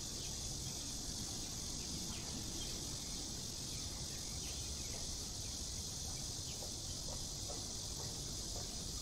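Steady, high-pitched insect chorus, continuous and unchanging, over a low background rumble of outdoor ambience.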